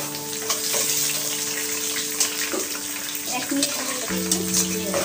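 Hot oil sizzling as sliced onions and whole spices fry in a non-stick wok, stirred with a spatula that gives scattered scraping clicks against the pan. Background music with held chords plays underneath, changing chord about four seconds in.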